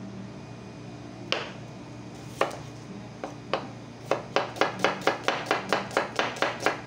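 Kitchen knife slicing small red onions on a wooden cutting board, each cut ending in a sharp tap of the blade on the board. A few separate cuts come first, then a quick steady run of about five cuts a second.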